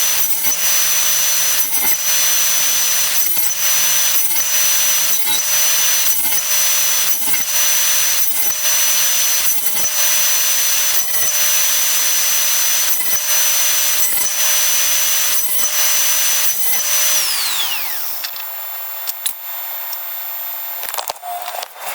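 A woodworking power tool runs steadily with a high whine, then winds down in pitch and stops a little before the end; a few light clicks and knocks follow.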